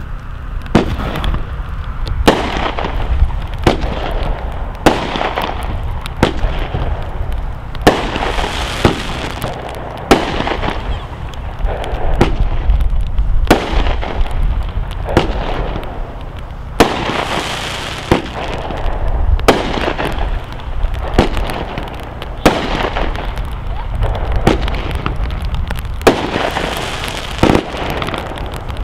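'Catastrophe' consumer fireworks cake, a multi-shot repeater, firing a shot about every second and a half. Each shot is a sharp bang followed by about a second of rushing noise from the burst.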